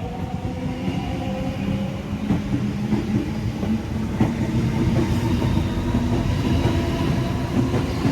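Waratah A set electric suburban train accelerating away from a platform: the traction motor whine rises in pitch over the first couple of seconds over a growing rumble, with the wheels clicking over rail joints.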